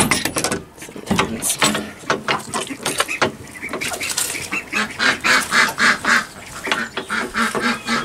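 A duck quacking over and over, about three quacks a second, from about halfway in. A few sharp clicks and knocks near the start come from a metal hook latch and a wooden pen door being opened.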